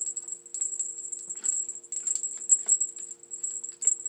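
A cat toy jingling and rattling in quick, irregular bursts as it is jabbed down a paintball gun barrel to push out a jammed paintball.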